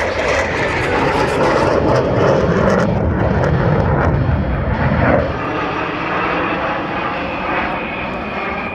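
Blue Angels jet flying past, a loud jet roar that swells and then drops off sharply about five seconds in, easing away after.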